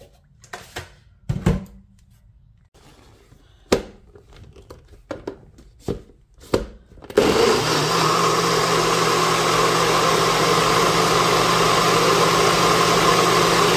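A few sharp knocks. Then, about seven seconds in, a NutriBullet-style personal blender's motor starts and runs steadily at full speed with a low hum, blending a smoothie of banana, walnuts, chia seeds, protein powder and almond milk.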